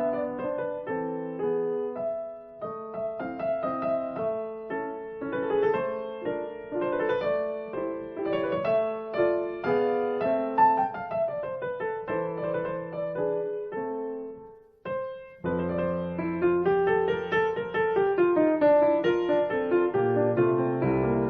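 Background piano music, a run of single notes; about 15 s in it pauses briefly and goes on with fuller, held low notes under the melody.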